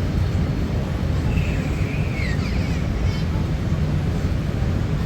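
Steady low rumble of the cabin noise inside a Boeing 787-8 Dreamliner, with a faint high-pitched squeal or voice sliding briefly about two seconds in.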